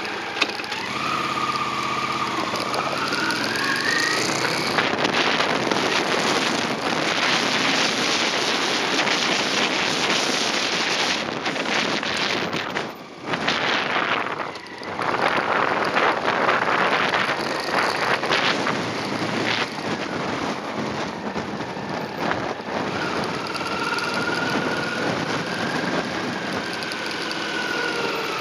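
Honda CX motorcycle's V-twin engine pulling away with its pitch rising. It then runs at road speed under heavy wind rush on the microphone. The sound drops off briefly about halfway as the bike slows and leans through a corner, then picks up again.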